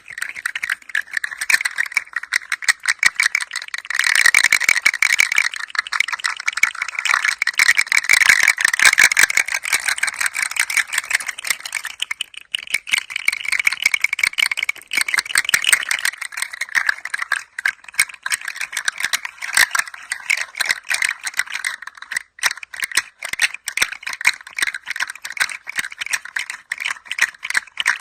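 A toy rattle being moved gently, its small loose pieces clattering in a continuous stream of fine clicks. It gets louder about four seconds in and again around eight to nine seconds, and thins briefly near twelve seconds.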